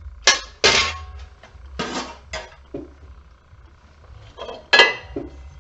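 Sharp metal clanks and knocks, about five in all, from the parts of a light fixture being handled as it is broken down for scrap aluminum. The last and loudest clank, near the end, rings briefly.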